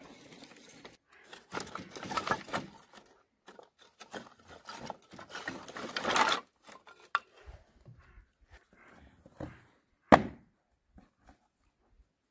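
Dry split kindling sticks rustling, scraping and clattering against each other as they are handled in a plastic crate, with one sharp wooden knock about ten seconds in.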